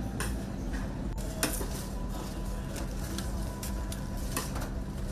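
Metal kitchen utensils clattering and scraping against pots and trays in a large-batch cooking kitchen, with irregular sharp clinks over a steady low machine hum.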